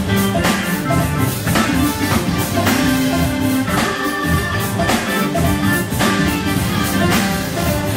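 Live band playing an instrumental number: drum kit keeping a steady beat, with electric guitar and Hammond organ or keyboards.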